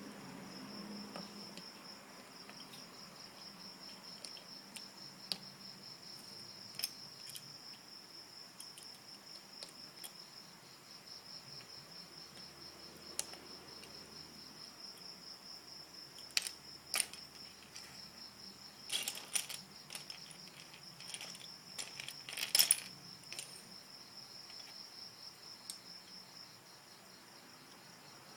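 A cricket chirping in a steady, high, rapidly pulsing trill throughout, with scattered sharp clicks and clatters of plastic Lego bricks being handled, a cluster of louder clatters coming about two-thirds of the way through.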